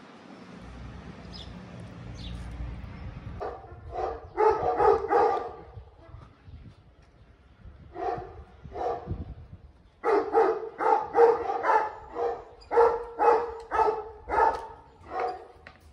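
A dog barking in short, repeated barks: a few about four seconds in, two more around eight seconds, then a quick run of barks through the last six seconds.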